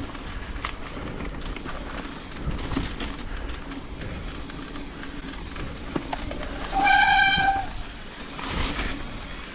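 Mountain bike rolling over a dirt trail, with tyre noise, a low hum and scattered rattles and knocks. About seven seconds in, a disc brake gives one short, high-pitched squeal.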